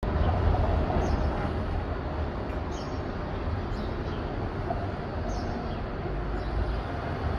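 Street ambience: the steady low rumble of a tram running along the street amid traffic, with a few faint short high chirps.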